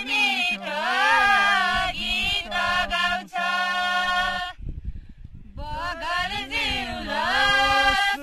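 Young women and a young man singing a Nepali deuda folk song together in unison, without instruments, with a short break about halfway through.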